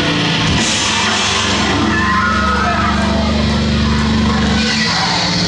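Live heavy metal band playing loud, amplified electric guitar, bass and drums, with low notes held steady for a few seconds in the middle before the music changes near the end.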